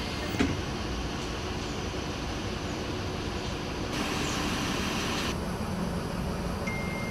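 Steady low rumble of an idling bus engine heard from inside the passenger cabin, with a sharp click just under half a second in and a hiss lasting about a second and a half from about four seconds in.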